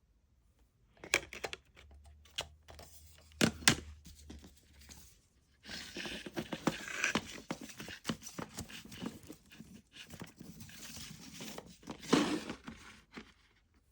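CD packaging being handled: a few sharp clicks and knocks from the plastic case, then several seconds of crinkling and rustling, like wrapping or paper being handled, with a louder click about twelve seconds in.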